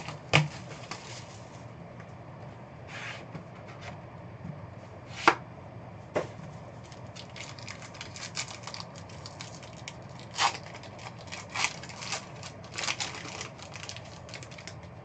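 A hobby box of football trading cards being opened by hand: sharp taps of cardboard, then a run of quick crackling and crinkling from the plastic wrapping, with the cards shuffled.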